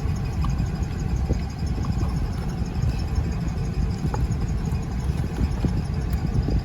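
Car engine idling: a steady low rumble, with a few faint light clicks over it.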